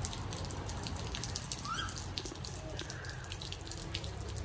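Faint, irregular ticks and drips of water falling during wet snowfall, over a low steady background rumble.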